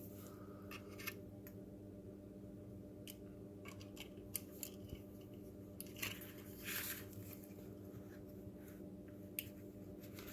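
Faint handling sounds: scattered small clicks and short rustles as thin cables are threaded through a slot in a plastic robot body part, over a low steady hum.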